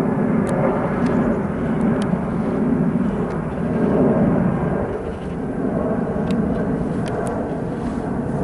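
Four Rolls-Royce Trent 970 turbofans of an Airbus A380-841 running at climb power as the airliner climbs overhead after takeoff. It is a loud, steady jet rumble that swells and eases gently, with a faint steady hum in it.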